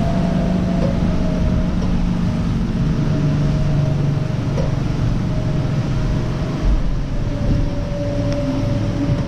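An ocean racing yacht's hydrogenerator running under sail, giving a steady whine with a low hum beneath it over a constant rush of water and air noise.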